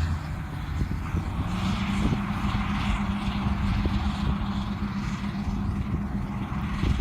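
Heavy farm machinery's diesel engine running steadily at working speed, a low hum with a steady drone coming in about a second and a half in, over a rushing, hissing noise.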